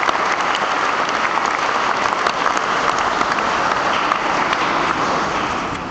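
Audience applauding steadily, a dense patter of many hands clapping, for a graduate crossing the stage to collect a degree. The applause begins to die away near the end.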